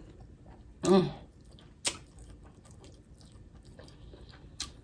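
Close-miked chewing of food, with a few sharp lip smacks and a brief appreciative 'mm' about a second in.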